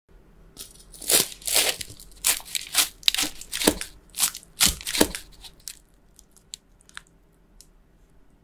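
A knife cutting through the crisp, pan-browned crust of cheese-filled potato bread: a quick run of about a dozen crunches, followed by a few light ticks near the end.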